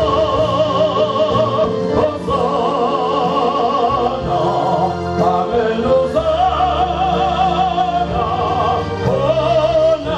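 A man singing a gospel song solo into a microphone, holding long notes with a strong wavering vibrato over a sustained instrumental accompaniment whose chords change every couple of seconds.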